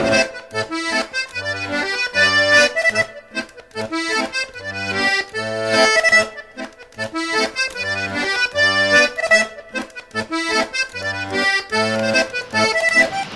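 Instrumental music led by an accordion: a tune over a steady, regular alternation of bass notes and chords.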